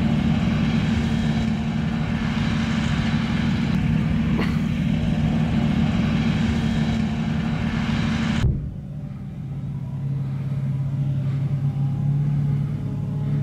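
Engine of a BM-27 Uragan rocket launcher's eight-wheeled truck running steadily with a low drone. About eight seconds in the sound cuts abruptly to a quieter, slightly different engine note that grows louder again.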